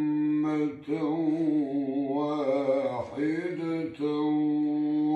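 An elderly man reciting the Quran in the melodic tajweed style, drawing out long, ornamented held notes. The recitation comes in about four phrases with short breaks for breath.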